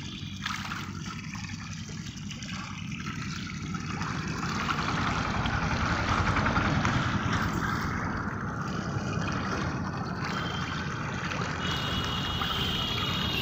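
A dense shoal of sarpunti (olive barb) thrashing and splashing at the water surface in a feeding frenzy: a continuous churning splash that grows louder after about four seconds.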